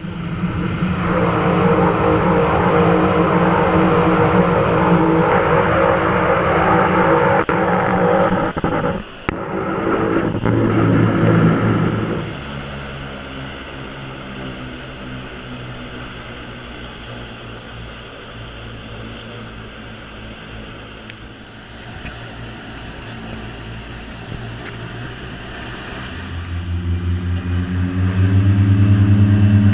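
Seaplane's turboprop engine and propeller running, heard from inside the cabin. It is loud with a steady low drone at first, settles to a quieter even run about twelve seconds in, and swells to full power near the end as the plane speeds up through spray on its takeoff run.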